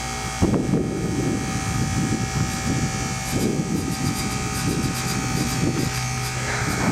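Goodman heat pump outdoor unit running through its defrost cycle: a steady compressor hum with fixed tones and a buzz that the owner puts down to the fan grill vibrating. Gusts of wind rumble on the microphone.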